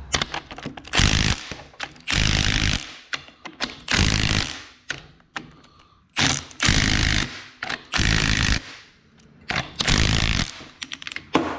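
Milwaukee M12 cordless impact wrench hammering bolts down in about seven short bursts, with brief pauses and clicks between them. It is tightening the bolts of the cover plate on a combine's reverser gearbox.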